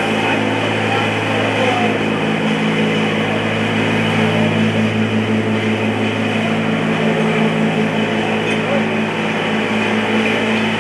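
City street ambience: a steady low engine hum from traffic, with indistinct voices of people nearby.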